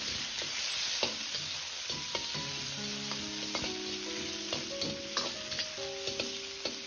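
Thin slices of pork belly sizzling in a hot wok while a metal wok spatula scrapes and knocks against the pan as they are stir-fried, rendering out their water and fat. Soft background music notes come in about two seconds in.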